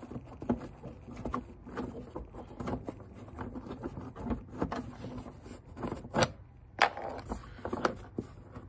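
Irregular clicks, knocks and light scrapes of hands and tools working on the parts of a car's engine bay, with two sharper knocks a little after six seconds and just before seven seconds.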